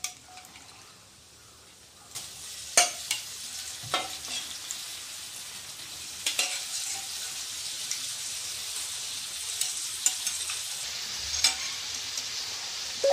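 Pressure-cooked mutton pieces ladled into a hot kadai of fried masala, sizzling steadily from about two seconds in. A metal ladle knocks sharply against the pans a few times.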